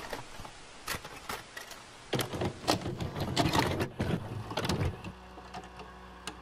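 Mechanical clicking and whirring, louder between about two and five seconds in, then settling into a steady hum with a few light clicks.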